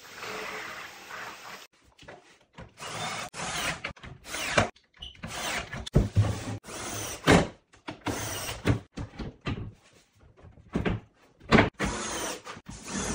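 Kitchen cabinet fitting work: short bursts of a power drill mixed with knocks and clatter of wood and tools, coming in quick, choppy snatches with abrupt breaks.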